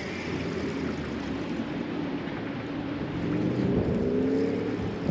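Steady rushing of shallow river water around a wader's legs, with a faint hum that rises slightly in pitch in the second half.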